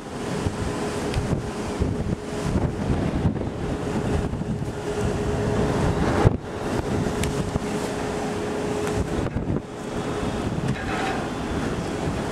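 Wind buffeting the camera microphone on a ship's open deck, a steady rumbling rush. A faint steady hum runs underneath and stops about nine seconds in, and there is a brief knock about six seconds in.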